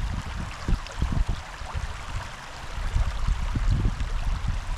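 Large river flowing and rushing steadily, with irregular low rumbles underneath.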